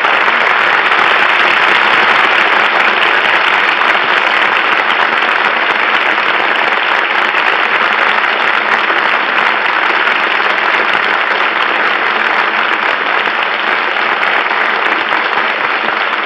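Studio audience applauding steadily, easing off slightly toward the end.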